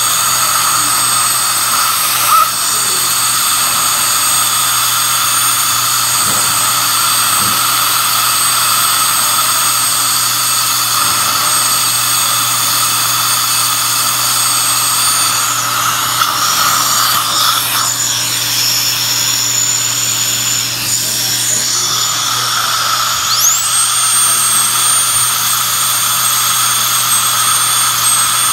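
High-speed dental drill (air-turbine handpiece) whining at a steady high pitch while shaping a tooth for a crown, over a steady hiss. A little past halfway it winds down and stops, then spins back up with a rising whine about eight seconds later.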